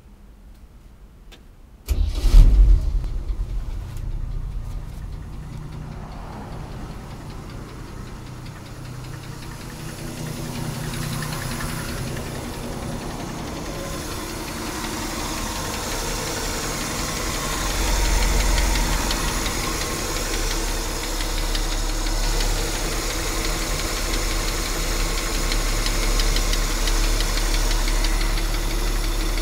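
A 230 cubic-inch inline-six engine starting about two seconds in and then running, getting louder later on, with the grinding noise that the owner cannot identify.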